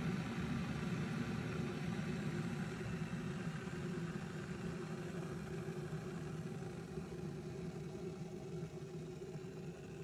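Cuisinart JK-17P1 stainless steel electric kettle heating water, a steady rumble that slowly fades.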